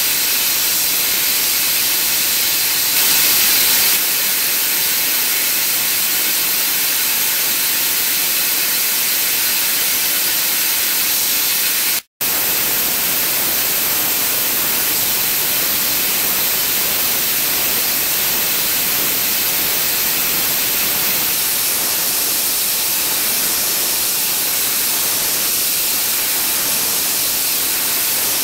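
Nakanishi HTS-1500 air turbine spindle running at 150,000 rpm while micro-milling hardened steel: a loud, steady hiss of compressed air. The sound cuts out for an instant about twelve seconds in.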